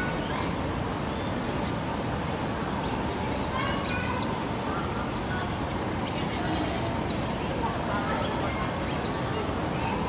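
Many small birds chirping: lots of short, high, downward-sweeping chirps that thicken from about three seconds in, over a steady background hiss.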